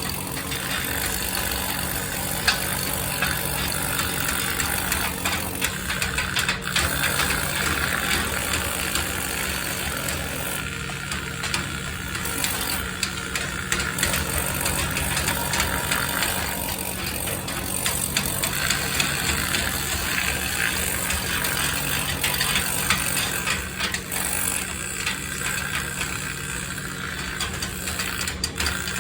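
An engine running steadily at low revs, with scattered clicks and rattles over it.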